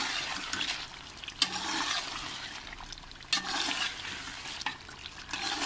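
Chicken pieces in a thick tomato gravy sizzling in a steel pot while being stirred with a spoon, the sizzle swelling with each stroke and the spoon clinking sharply against the pot a few times. This is the bhuna stage, frying the masala down until the oil separates.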